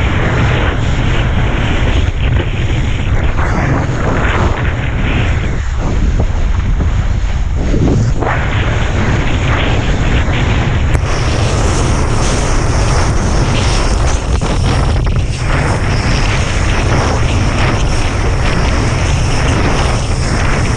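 Strong wind, about 20 knots, buffeting the camera microphone: a loud, steady rumbling rush with no breaks.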